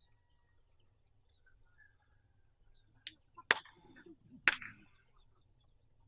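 Three sharp cracks, about three, three and a half and four and a half seconds in, the last two the loudest, each with a short low rumble after it, over faint bird chirps.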